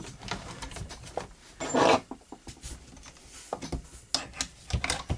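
Metal handling noises from a Remington Model 58 semi-automatic shotgun as its bolt is eased back by hand: scattered scrapes and light clicks, with one longer, louder scrape about two seconds in. A cluster of clicks near the end comes as a brass punch is pushed up into the receiver to hold the bolt.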